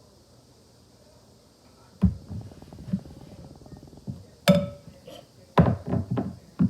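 Wet squelching and crackling of a shaving-cream foam mixture being worked in a bowl. It starts suddenly about two seconds in, and a couple of sharp clinks against the bowl come about halfway through.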